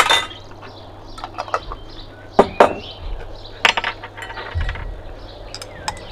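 Sharp metallic and glassy clinks of a teaspoon, jars and cookware being handled, several scattered through, the loudest right at the start. Birds chirp in the background.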